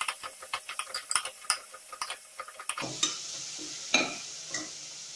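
Slotted steel spatula stirring chopped onions in hot oil inside an aluminium pressure cooker: quick scraping clicks of metal on the pan, then after about three seconds a steadier sizzle with a few separate taps.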